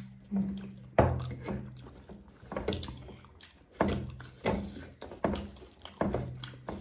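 Close-up eating sounds: wet mouth smacks and chewing as rice mixed with dal is eaten by hand. They come as a string of short, sharp wet sounds, roughly one a second.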